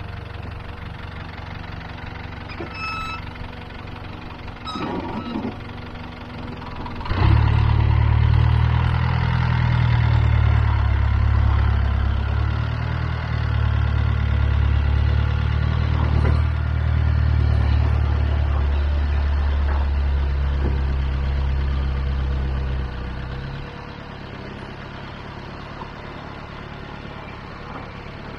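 Land Rover 110 Defender engine idling, then from about seven seconds in pulling hard under load at fairly steady revs as the truck crawls up a muddy rock step. It drops back to idle a few seconds before the end.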